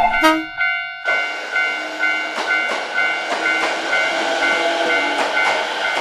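Japanese level-crossing warning bell ringing in a steady two-tone ding, about three times a second, starting about a second in. Under it a train runs past with a rushing noise and scattered wheel clacks.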